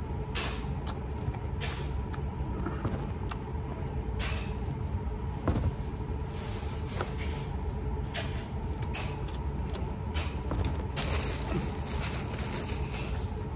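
Close chewing and crunching of a fried spicy chicken sandwich, a string of irregular crisp crunches and mouth clicks, over a steady low hum.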